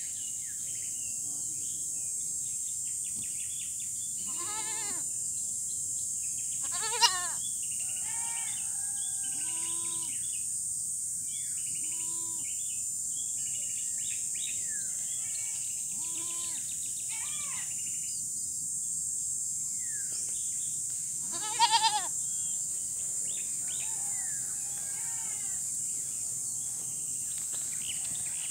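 Goats bleating over and over from all around the herd, several sharp, loud calls standing out, as a dog harasses and frightens them. A steady high insect buzz runs underneath.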